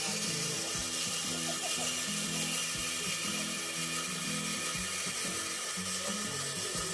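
Diamond-bladed band saw grinding through a hardened steel saw blade: a steady, even high hiss with faint whining tones, under background music.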